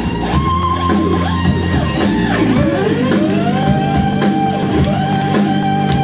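Rock music led by guitar, with long held lead notes that bend in pitch over steady low chords.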